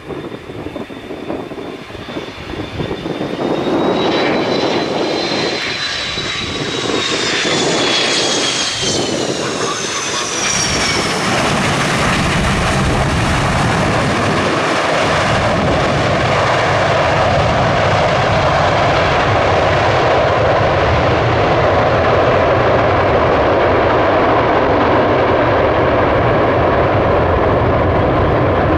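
McDonnell Douglas MD-88's JT8D turbofan jet engines: a high whine that falls in pitch, then a loud steady roar that builds and holds.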